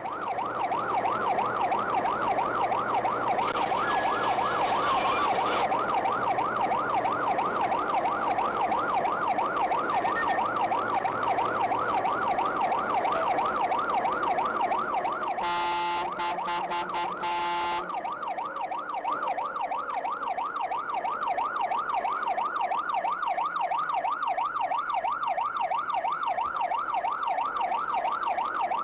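Fire engine's electronic siren wailing in a fast up-and-down warble, heard from inside the truck's cab, with the engine humming underneath. About halfway it switches for some two seconds to a steady blaring horn tone, then the warble resumes.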